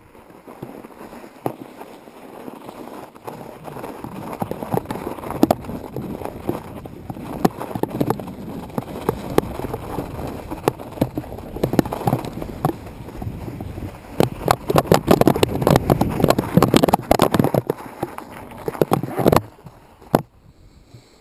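Mountain bike riding over rough, snow-covered ground: tyres crunching and the bike rattling with many quick knocks and clicks. It grows louder toward the middle and is loudest for a few seconds before dying down sharply near the end.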